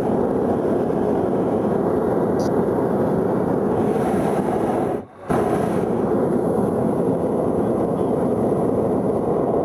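Hot-air balloon's propane burners firing in one long, steady blast, breaking off briefly about five seconds in and then firing on.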